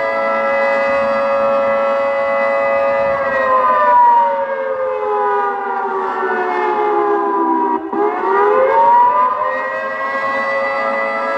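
ATI HPSS-32 electronic siren sounding the attack signal from a looped prerecorded Federal 2T22 blast. A steady chord for about three seconds slides down in pitch, cuts out for a moment about two-thirds of the way through, then rises back up to full pitch and holds.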